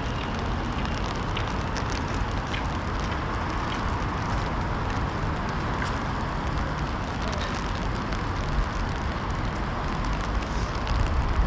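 Outdoor city ambience in light rain on wet pavement: a steady hiss with scattered small ticks over a low rumble that swells near the end.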